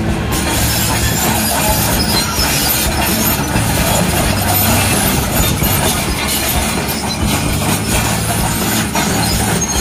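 Hyundai crawler excavator travelling on its steel tracks: the diesel engine runs steadily under a continuous clatter of track links.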